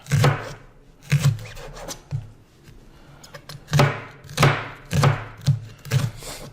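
Kitchen knife chopping leeks on a cutting board, about eight solid strokes in all. Three come spaced about a second apart, then after a pause five quicker strokes follow about half a second apart.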